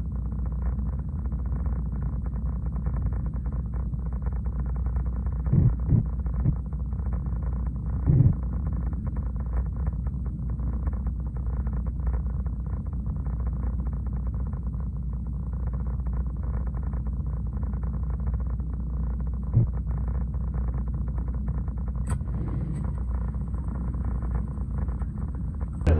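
Diesel engine of a log truck idling with a steady low rumble, heard from inside the cab, with a few short low thumps.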